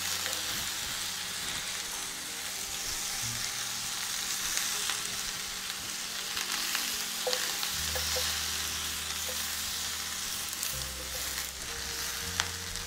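Vegetables and kale sizzling in a hot skillet as they are stirred with a silicone spatula, a steady frying hiss with a few light clicks of the spatula against the pan.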